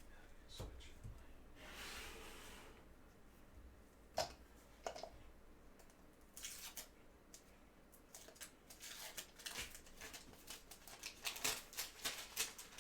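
Trading cards and plastic card holders handled at a table: faint scattered rustles and light clicks, thickening into a run of small clicks over the last few seconds.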